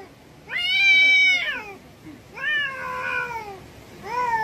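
Domestic cat yowling in a face-off with another cat: three long, drawn-out calls, the first the loudest, rising then falling in pitch, the second sliding downward, and a third starting near the end and held. These are the threat yowls of an angry cat.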